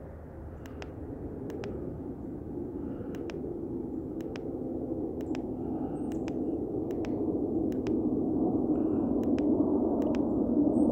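Trail camera's push button clicked repeatedly, about once a second, stepping back through the saved photos. Underneath is a steady low rumble that grows louder.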